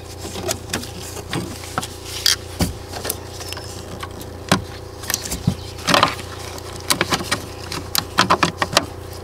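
Needle-nose pliers and fingers clicking and rattling against the plastic fuse box under the dash while a fuse is pushed back into its slot, scattered sharp clicks with a busier clatter near the end, over a steady low hum.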